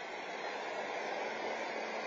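Garbage truck running as it drives off, a steady noise heard through a security camera's microphone.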